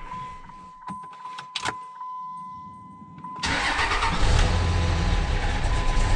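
A 2005 Dodge Ram's 5.9 L Cummins turbo-diesel, heard from inside the cab. It is off at first, with a few clicks and a faint steady tone, then starts suddenly about three and a half seconds in and runs steadily at idle.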